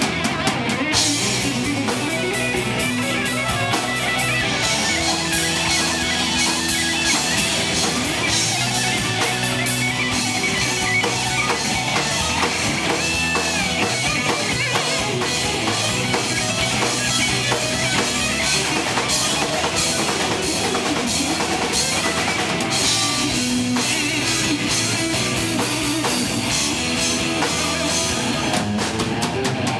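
Live rock band playing: electric guitar over a drum kit with steady cymbal strikes.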